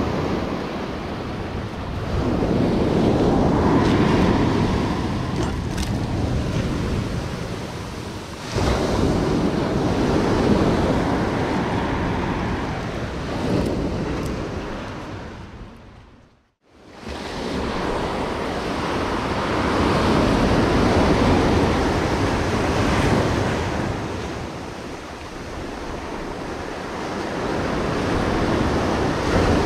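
Ocean surf breaking and washing up a rocky shoreline, rising and falling wave by wave. About halfway through it fades out to near silence for a moment, then the surf resumes.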